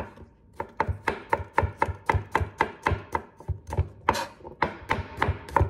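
Chef's knife chopping garlic cloves on a cutting board: a steady run of sharp knocks about four a second, starting after a short pause.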